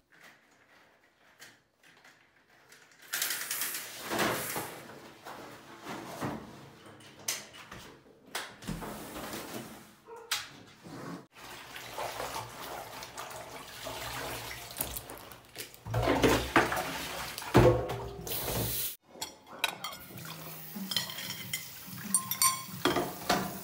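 Household washing sounds: tap water and wet clothes being handled at a laundry sink, then cutlery and a plate clinking at the kitchen sink near the end. It opens with a few seconds of near silence.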